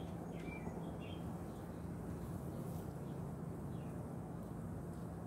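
A colony of honey bees buzzing around an opened hive: a steady, even low hum. A few faint bird chirps come in the first second or so.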